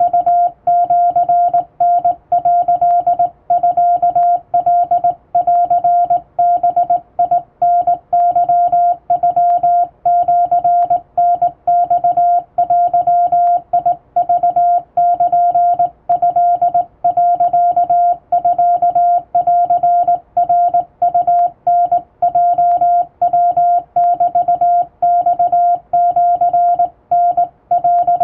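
Japanese wabun Morse code sent by hand on a straight telegraph key, heard as a single steady sidetone beeping on and off in dots and dashes, with short pauses between characters.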